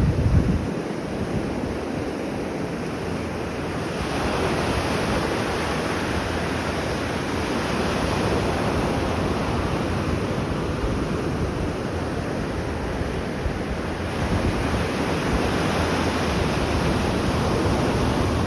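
Atlantic Ocean surf: waves breaking and washing in, a continuous rush that swells about four seconds in and again near the end. Wind buffets the microphone at the start.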